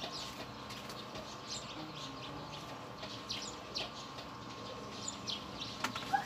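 Small birds chirping in quick, short notes scattered throughout, over a faint steady hum.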